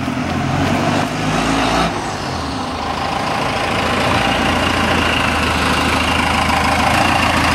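A 4BT Cummins turbo-diesel engine in a Ford pickup running as the truck drives up, getting gradually louder as it approaches. A thin high steady whine joins it from about four seconds in.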